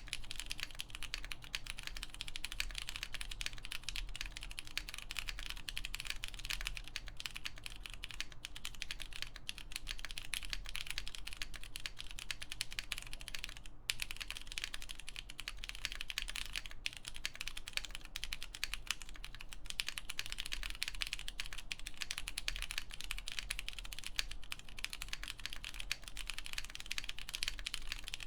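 Continuous typing on an MM Studio Class65 V3 mechanical keyboard with lubed Cherry MX Purple switches, a full polypropylene plate and Hammerworks CRP keycaps: a dense, even stream of keystroke clacks, with a brief pause about fourteen seconds in.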